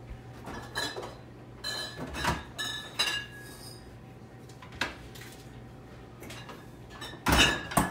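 A metal baking tray and bottles in the door shelves of a French-door refrigerator clinking and knocking as the doors are opened and the tray is slid onto a shelf, a few of the clinks ringing briefly like glass. Near the end the refrigerator doors shut with a loud thump.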